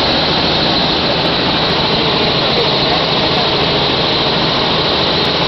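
Helicopter engine and rotor noise inside the cabin in flight: loud and steady throughout.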